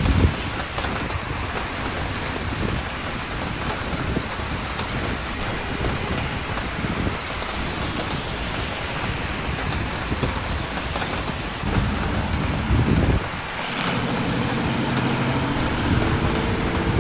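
Steady rain falling on a wet city street, with a low traffic rumble underneath. About twelve seconds in a louder low rumble passes, and a steady low hum with a few held tones follows.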